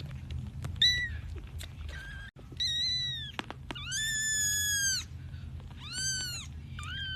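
A kitten meowing repeatedly in high-pitched calls, about five in all, the longest held for about a second midway. A steady low hum runs underneath.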